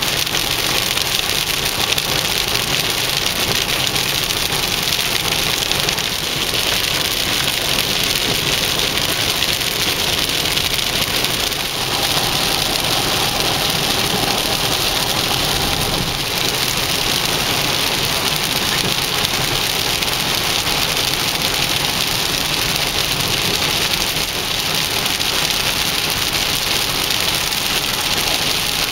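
Heavy rain hitting a moving car's windshield and roof, with tyres on the wet road, heard from inside the car as a steady hiss.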